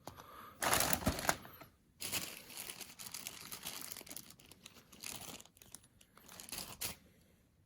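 Plastic packaging crinkling and rustling as it is handled, loudest in a burst about a second in, then crackling more steadily until near the end.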